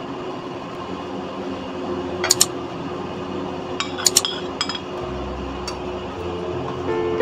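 Spoon and small glass bowls clinking against a stainless steel mixing bowl as spices are tipped into gram flour. There is a pair of sharp clinks about two seconds in and a quick cluster of clinks around four seconds in.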